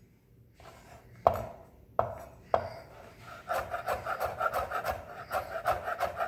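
Chef's knife dicing red bell pepper strips on a bamboo cutting board: three separate knocks in the first half, then from about three and a half seconds a quick, even run of chopping strokes, about three or four a second.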